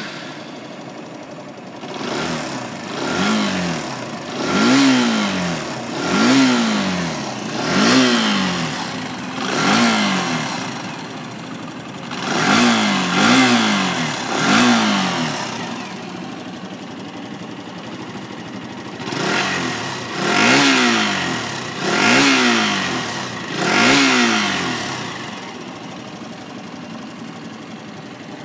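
Kawasaki D-Tracker 125's air-cooled single-cylinder four-stroke engine idling and being blipped with the throttle: a run of about six quick revs, then two shorter groups of three, each rev rising and falling back to idle, with steady idle between and at the end.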